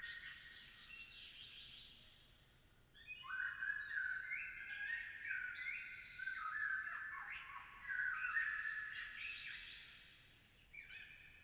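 Birds chirping: many overlapping short whistled notes, high in pitch, with a brief lull about two seconds in.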